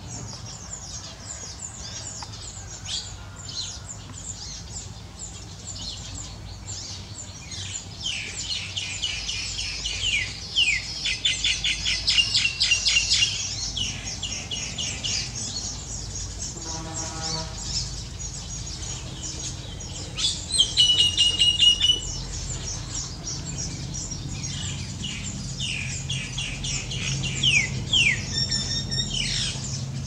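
Weaver birds chattering: trains of rapid dry clicks mixed with buzzy, wheezy whistled notes, loudest from about 8 to 14 seconds in and again around 21 seconds.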